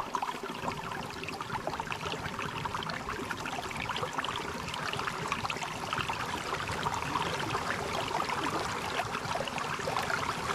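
Water running down a waterfall: a steady splashing rush.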